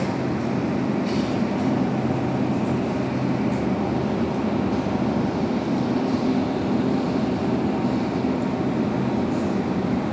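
Steady low rumble with a faint hum: supermarket background noise, no speech.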